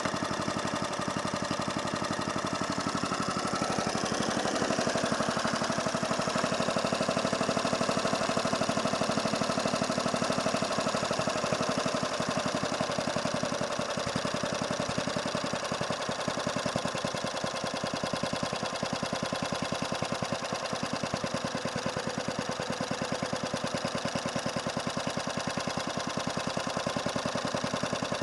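Hayterette rough-cut mower's small petrol engine running steadily with a fast, even firing beat, its note lifting and getting a little louder about four seconds in, then easing back around eleven seconds.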